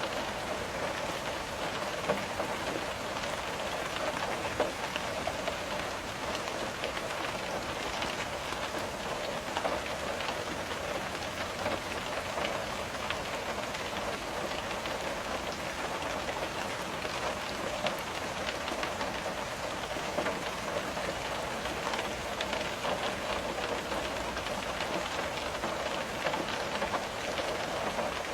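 Steady rain with raindrops tapping against a window, many fine ticks and a few sharper hits over an even wash.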